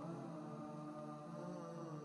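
Background music of slow, sustained held tones with no clear beat.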